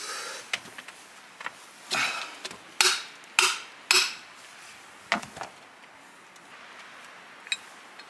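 Hand hammer blows: three sharp, loud strikes about half a second apart near the middle, with lighter knocks and clinks before and after.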